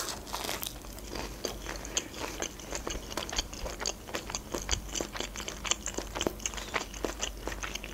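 Close-miked bite into a crispy breaded fried shrimp, then steady crunchy chewing, with many small, sharp crunches following one another quickly.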